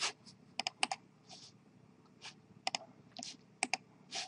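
Computer mouse buttons clicking, mostly in quick press-and-release pairs, as a file is selected and right-clicked, with a few soft hissy noises in between.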